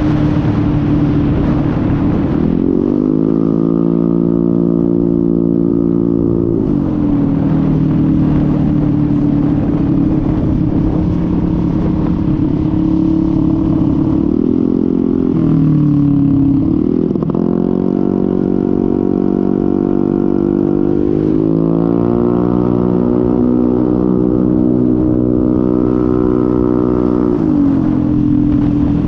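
Honda MetRuck scooter engine running at road speed, heard from a helmet-mounted camera under heavy wind noise. Its droning note rises and falls with the throttle, dropping about fifteen seconds in and climbing again a couple of seconds later.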